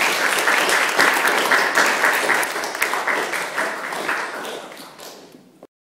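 A small audience applauding, many hands clapping at once; the clapping thins and fades toward the end and cuts off suddenly.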